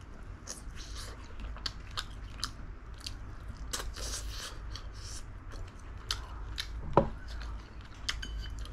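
A person chewing and eating spicy braised chicken close to the microphone: a run of short, irregular mouth clicks, with one louder sharp click about seven seconds in.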